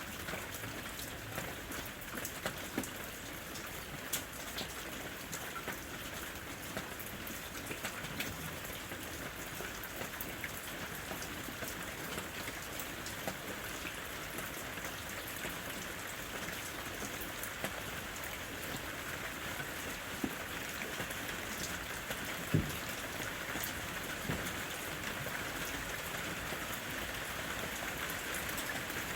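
Steady rain falling in a forest, an even hiss with scattered louder individual drops, one sharper drop hit a little after two-thirds through.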